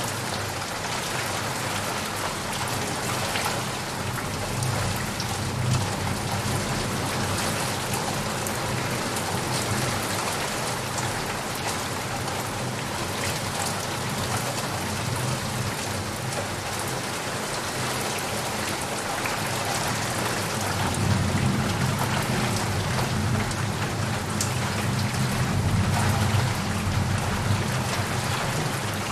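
Heavy rain falling steadily, a dense even patter. A low rumble of thunder swells about five seconds in and rolls again, louder, through the last third.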